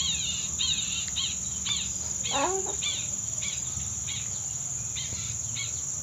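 Outdoor garden ambience: insects trilling steadily at a high pitch while a bird repeats short, falling chirps about twice a second. A lower, sliding bird call comes in briefly about two and a half seconds in.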